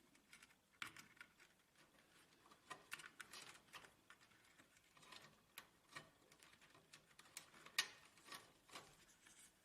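Faint, scattered clicks and taps, a dozen or so at uneven intervals, the loudest about three-quarters through: fuser cable connectors being plugged into an HP LaserJet printer.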